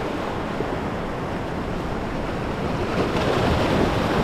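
Ocean surf breaking and washing over shore rocks: a steady rush of water that swells a little about three seconds in.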